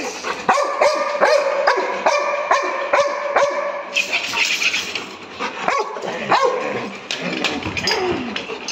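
Yellow Labrador whining and yipping, a held whine crossed by short sharp sounds about twice a second, then a couple of falling whimpers.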